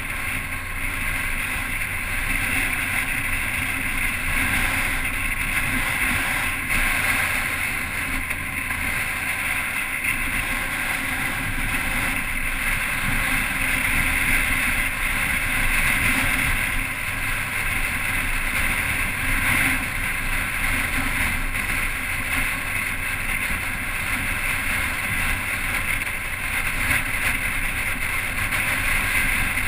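Motorcycle riding downhill on the open road: steady engine drone mixed with wind rushing past the bike-mounted camera.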